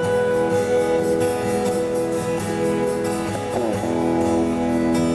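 Background music: guitar playing held notes, with a sliding note about three and a half seconds in.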